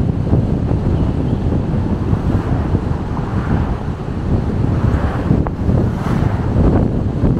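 Wind rumbling on the microphone of a moving car, over the steady rush of road noise.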